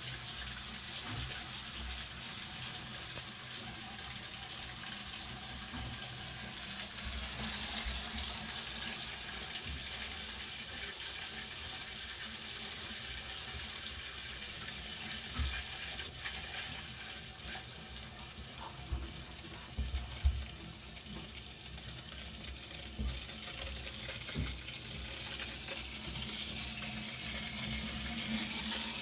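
Water rushing steadily through the pipework and valves of a micro hydropower plant, a constant hiss. A few dull knocks come in the second half.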